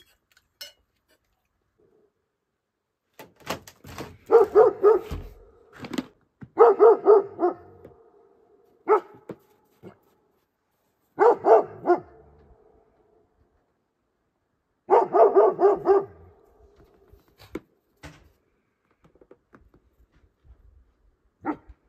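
A dog barking in volleys of several quick barks each, five runs with pauses between them and a single bark now and then.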